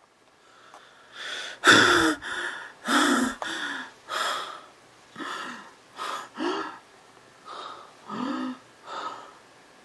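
A man panting and gasping hard, about a dozen loud breaths, some of them voiced, the loudest about two seconds in.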